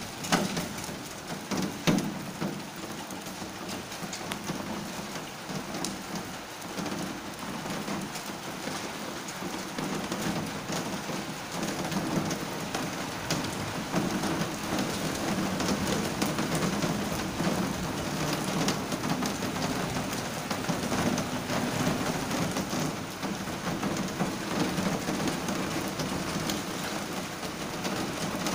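Heavy rain mixed with small hail pelting paving: a dense hiss full of sharp little ticks from hailstones striking, growing louder about halfway through.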